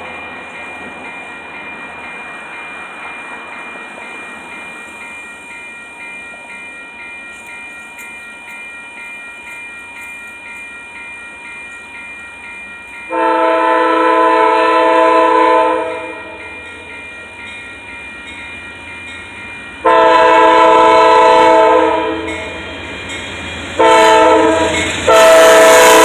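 A railroad crossing bell rings steadily while a train approaches. About halfway through, the oncoming Amtrak locomotive's air horn sounds the grade-crossing signal: long, long, short, then a final long blast that runs on as the locomotive reaches the crossing.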